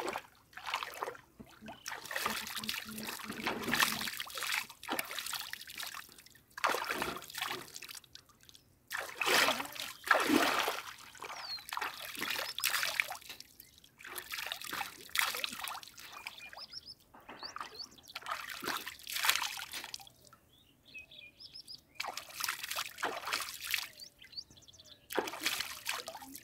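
River water splashing and trickling in irregular bursts as a person scoops it with his hands and washes his hands and feet. A few short bird calls come about two-thirds of the way through.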